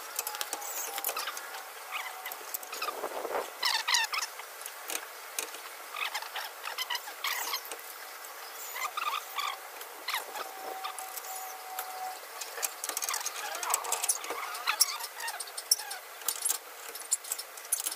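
Scattered light clicks and clinks of metal hand tools and suspension parts being handled and worked, with short squeaks in between.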